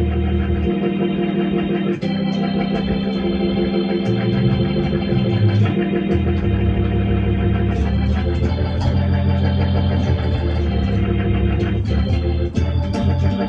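Electronic keyboard played with an organ sound: gospel chords held over a bass line, the harmony changing about every two seconds.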